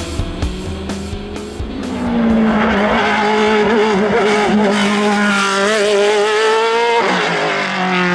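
Hillclimb racing prototype's engine under full acceleration, its note climbing steadily in pitch, then dropping suddenly about seven seconds in at a gear change before climbing again. Music fades out in the first couple of seconds.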